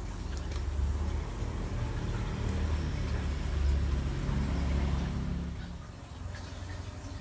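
Low engine sound of a motor vehicle, growing louder through the middle and fading away about six seconds in.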